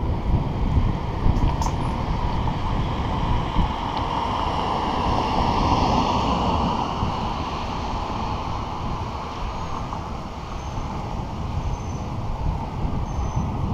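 Wind rushing over the microphone of a camera riding on a moving bicycle, with tyre and road noise under it. The noise swells about four to seven seconds in, then eases off.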